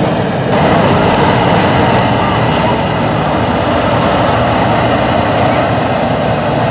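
Tatra 815 8x8 truck's diesel engine running hard under load as the truck churns through deep mud. From about half a second in until near the three-second mark, a crackling, scraping noise rides on top as the truck pushes into the brush.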